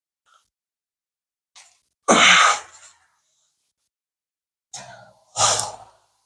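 A person sneezing twice, about three seconds apart, each sneeze a sharp loud burst that follows a short catch of breath.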